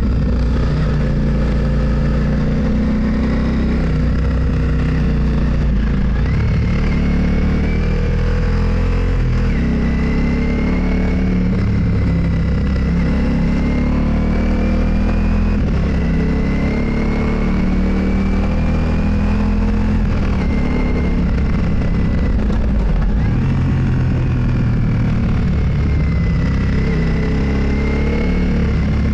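Motorcycle engine running steadily while riding, with a faint whine that climbs and drops back several times as the speed changes.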